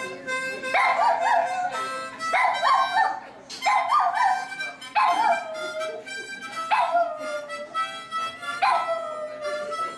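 A small dog howling along to a harmonica, with the harmonica chords and the dog's long howls coming together in repeated phrases that start afresh every second or two.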